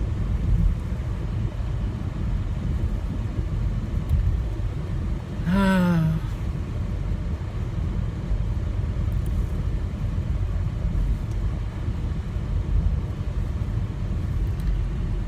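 Steady low rumble of a car driving, heard from inside the cabin. A short falling vocal sound, like a brief hum, comes about five and a half seconds in.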